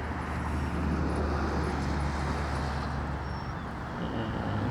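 Steady road traffic noise from a nearby major road: a continuous low rumble of passing cars.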